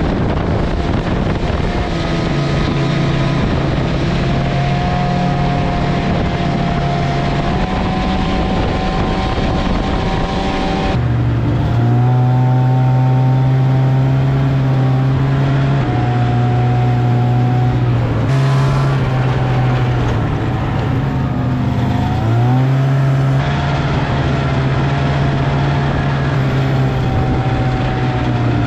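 Snowmobile engine running under way at a steady speed, heard from on the machine. Its pitch drops briefly and climbs back up about three quarters of the way through.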